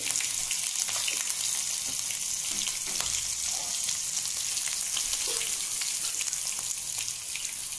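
Mustard seeds, green chillies and asafoetida frying in hot oil in a small steel pan: a steady sizzle with many small crackles, as in a tadka.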